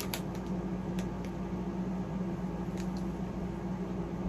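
A steady low hum, with a few faint crinkles and crunches as a popcorn bag is handled and popcorn is eaten.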